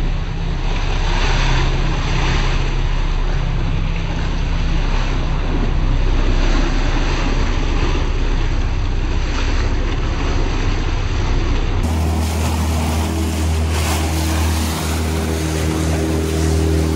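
Rushing water of a flooded river's rapids, with wind buffeting the microphone. About twelve seconds in, the sound changes to a boat motor running steadily over the water noise.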